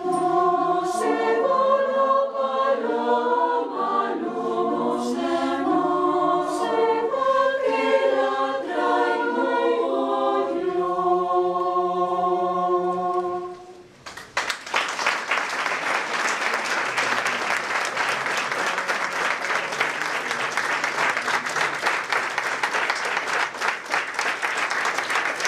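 Women's choir singing, closing on a long held chord a little past halfway. The audience then breaks into applause.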